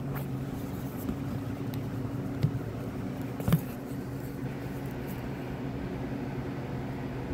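Handling of a small eyeshadow palette (Huda Beauty Topaz Obsessions) and its cardboard packaging as it is pulled from the box and opened. There are a few light taps and one sharp click about three and a half seconds in, over a steady low background hum.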